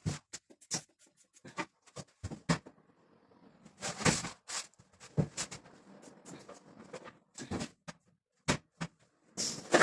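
Irregular knocks, clicks and short scrapes of hard objects being handled: plastic levelling wedges being worked under a washing machine's feet, with a longer scrape about four seconds in and again near the end.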